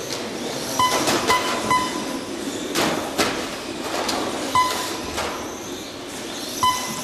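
Five short electronic beeps at uneven intervals, typical of a race lap-counting system sounding as the RC cars cross the timing line, over steady hall noise, with two sharp knocks about three seconds in.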